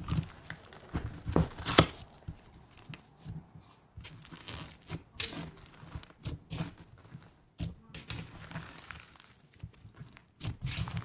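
Fingers pressing, stretching and pulling apart a sticky fluffy slime, giving irregular crackles and sticky tearing snaps, the sharpest about two seconds in.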